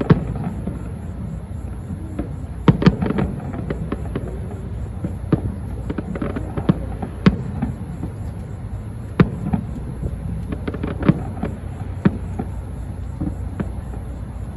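Low-altitude aerial fireworks bursting in irregular succession: sharp bangs and crackles, several close together around three, six and eleven seconds in, over a steady low rumble.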